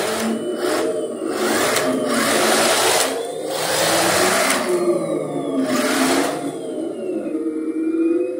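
Heng Long 1/16 M1A2 Abrams RC tank driving on a hardwood floor: electric drive motors and steel-gear gearbox whirring, the whine rising and falling with the throttle, with several surges of clattering metal-track noise.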